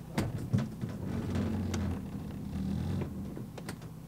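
Boots and a wooden plank knocking on a boat's deck, a few sharp thuds near the start, over a steady low engine hum.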